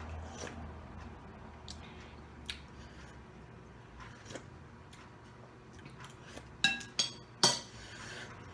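Metal spoon clinking against a ceramic soup bowl: three sharp, ringing clinks close together near the end, after scattered soft clicks of eating.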